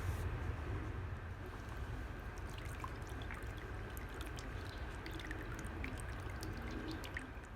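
Water pouring and trickling over a steady low rumble, with many small drips or bubbling ticks from a few seconds in; it cuts off suddenly at the end.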